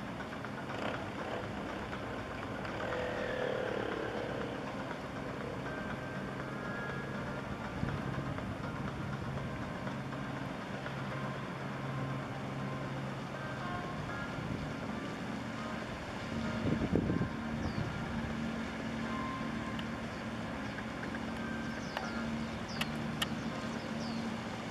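Steady low engine drone over a background of traffic-like noise. A louder rumble swells briefly about two-thirds of the way through, and a few short high chirps come near the end.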